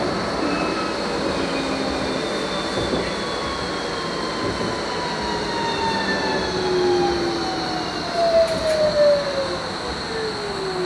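Bombardier Flexity Berlin tram running, heard from inside the passenger compartment: a steady rumble of the wheels on the track with an electric drive whine that slowly falls in pitch, over a thin high steady tone. A few louder knocks come about eight to nine seconds in.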